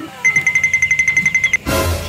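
Rapid electronic beeping at one steady high pitch, about ten beeps a second for just over a second, like an alarm clock. It is followed near the end by a short burst of noise.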